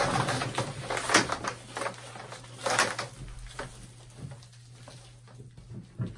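Coil of blue plastic water pipe being handled and fed off, the tubing rubbing and scraping against itself and the plastic floor sheeting in irregular rustles that fade toward the end. A steady low hum runs underneath.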